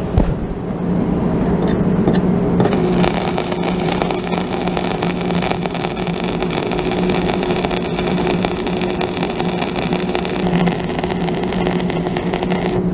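Shielded metal arc (stick) welding: a 1/8-inch (3.2 mm) electrode burning in a steady arc, a continuous crackling fry with a constant buzz underneath as the bead is run.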